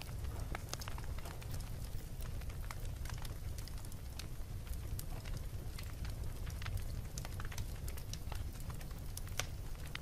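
Wood fire burning in a fireplace: irregular sharp crackles and pops from the burning logs over a steady low rumble of the flames.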